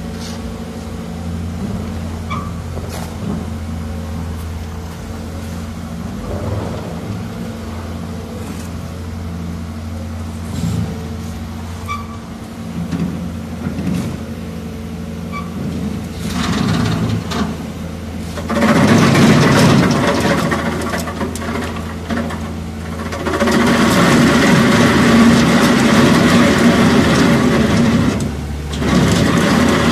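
Bobcat skid-steer loader's diesel engine running steadily, then working hard as its wheel saw attachment cuts into the asphalt: a loud grinding and engine roar that comes in spells from about two-thirds of the way in, with brief dips between them.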